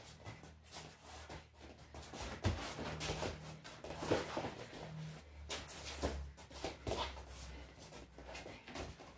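Wrestling shoes scuffing, squeaking and stamping on a vinyl wrestling mat as two wrestlers grapple, with sharper thuds about two and a half and four seconds in.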